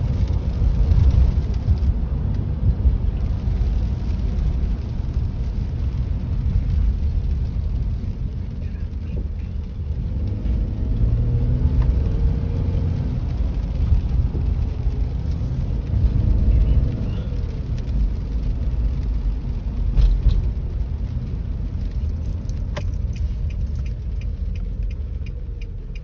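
Steady low rumble of a car's engine and tyres on a wet road, heard from inside the cabin while driving in rain. The turn-signal indicator ticks evenly near the end.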